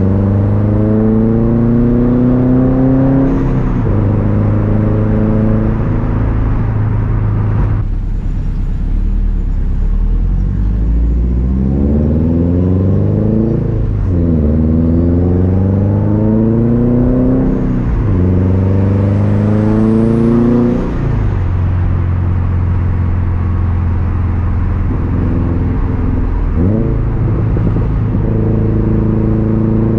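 2013 Subaru WRX STI's turbocharged boxer four with a Tomei Expreme Ti unequal-length exhaust, giving a loud rumble. The engine revs up through several pulls with brief gear changes between them, then settles to a steady cruise after about twenty seconds.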